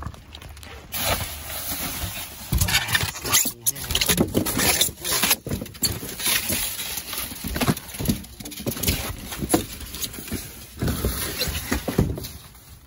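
Rummaging through trash: plastic bags and bubble wrap crinkling and cardboard boxes being shifted, with irregular rustles and knocks throughout.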